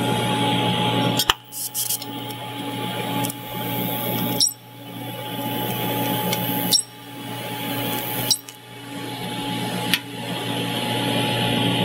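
Welding arc buzzing steadily as a chromoly roll cage bar is welded to the car. It cuts out briefly about five times, with a sharp click at each break.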